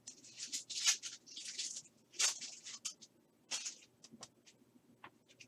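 Foil wrapper of a trading-card pack torn open and crinkled, in several high rustling bursts over the first two seconds, with sharper crackles about two and three and a half seconds in. Soft ticks follow as the cards are handled and flicked through.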